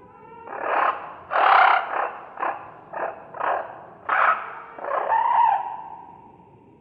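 Dinosaur sound-effect calls: a string of harsh, rasping creature calls in quick succession, about seven or eight in all. The last, about five seconds in, is longer and carries a held tone that trails off.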